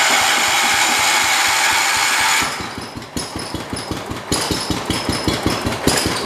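The engine of a 1978 John Deere 312 garden tractor, just started, running fast and loud. About two and a half seconds in it drops to a slower, uneven idle of distinct firing pulses.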